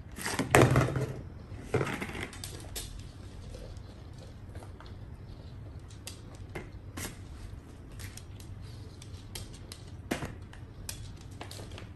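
A small dog pawing and nosing at a plastic basin on a wooden floor: two knocking bumps in the first two seconds, then scattered light clicks and taps.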